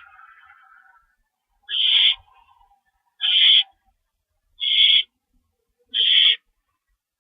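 Barn owl screeching: four harsh, hissing screeches of about half a second each, repeated at a steady pace about a second and a half apart.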